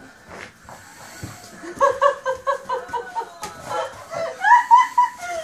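A person laughing in quick repeated bursts, about four a second, starting about two seconds in, with higher-pitched laughs near the end.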